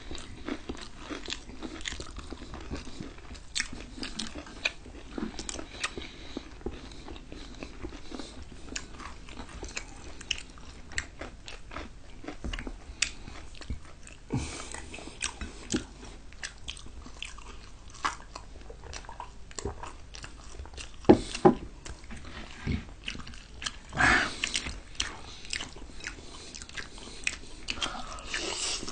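Close-miked eating sounds: chewing, biting and crunching of fried chicken and French fries, as a steady run of short wet clicks with a few louder ones about two-thirds of the way through. A noodle slurp comes near the end.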